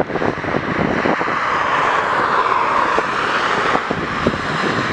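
Jet engines of an SAS Airbus A320-family airliner at climb power as it departs: a steady, loud rushing noise with scattered crackles.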